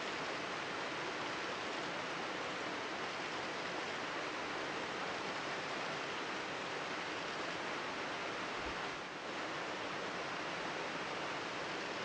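Steady rushing of a mountain stream in a gorge, an even wash of water noise with no bird song over it; it dips briefly about nine seconds in.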